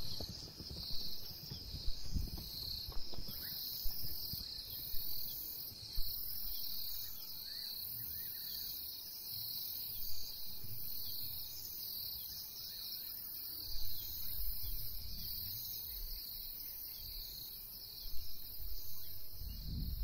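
Insect chorus in the bush: a steady, high, pulsing chirring, with a low fluctuating rumble underneath.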